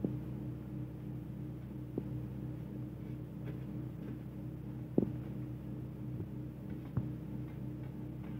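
Steady low hum with four short clicks, the loudest about five seconds in: fingers knocking against a steel plate while chopped vegetables are scraped off it into a steel bowl.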